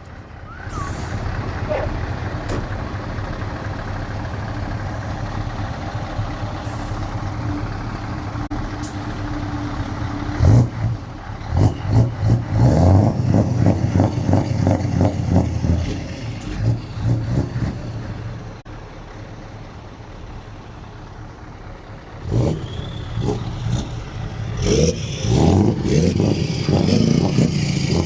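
Two Scania trucks, an R500 and an R480, with side-exit exhausts, running steadily and then revved in quick repeated blips. There are two runs of revving, the first about ten seconds in and the second in the last few seconds.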